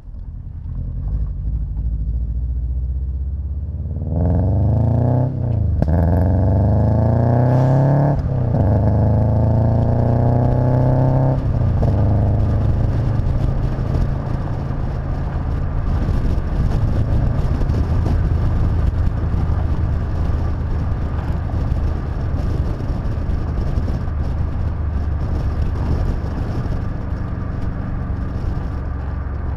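Car engine accelerating hard, its pitch climbing and dropping back at two gear changes over several seconds, then settling into steady cruising with road and wind noise inside the cabin.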